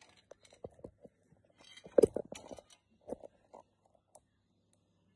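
A scatter of small clicks and knocks, with a denser crackling, rustling patch about two seconds in and a shorter one a second later, over a faint steady low hum.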